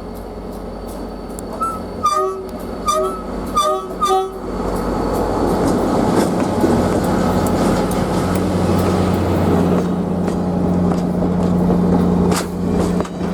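Diesel locomotive horn sounding about four short blasts. The train then passes close by, its diesel engine drone and wheel-on-rail noise steady and loud.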